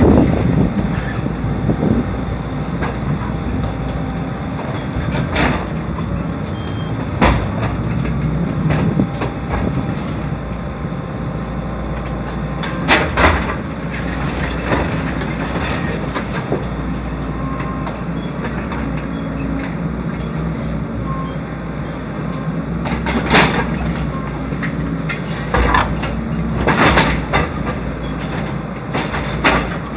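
Excavator engine running steadily, with intermittent crunches and knocks of concrete being broken during demolition, several of them sharp, around a quarter and halfway through and repeatedly near the end.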